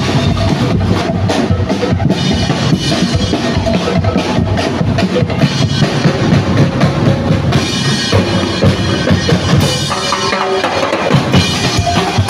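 Music with a steady kick-and-snare drum beat.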